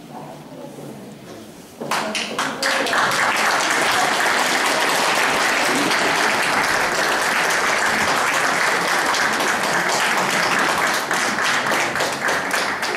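Audience applauding, breaking out suddenly about two seconds in and going on steadily, thinning into more separate claps near the end.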